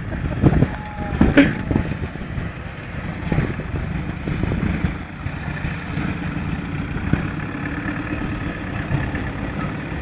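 Toyota Hilux pickup engine running as the truck drives over rough ground, with a couple of sharp knocks in the first second and a half and then a steady drone.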